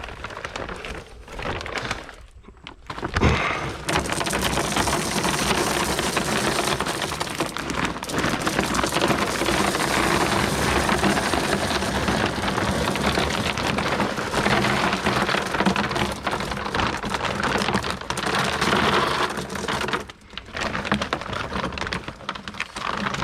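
Water softener salt pouring from a bag into the brine tank: a steady rush of falling salt that starts about three seconds in, just after a single knock, and runs for about sixteen seconds before stopping.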